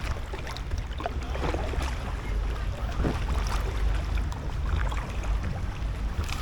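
Packraft paddling on calm canal water: paddle blades dipping, with scattered short splashes and drips over a steady low rumble.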